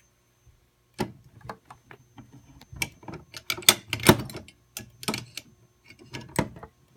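Irregular clicking and clattering of plastic fire alarm equipment being handled and opened by hand, starting about a second in.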